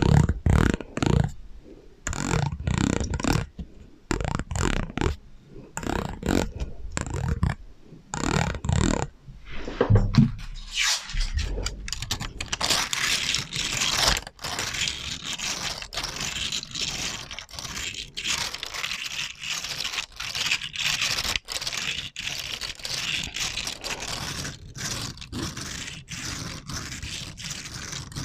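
ASMR trigger sounds with an echo effect: for about ten seconds, quick low muffled thumps, then fast, continuous scratching and scraping to the end.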